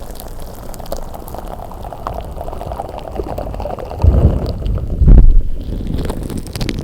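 Slime being squished and kneaded by hand, a wet crackling squelch with two heavier presses about four and five seconds in.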